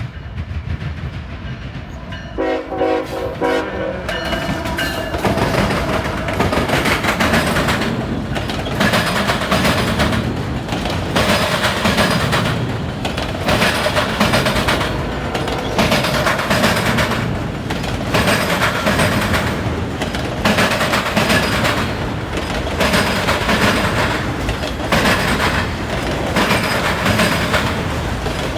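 Freight train locomotive air horn sounding a short chord about two seconds in, then a CSX auto rack train passing close, its wheels banging across a diamond rail crossing in a repeating rhythm over the steady rumble of the cars.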